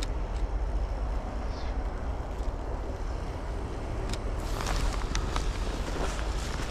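Steady low outdoor rumble. From about four and a half seconds in, footsteps crunch through snow in a quick series of short steps.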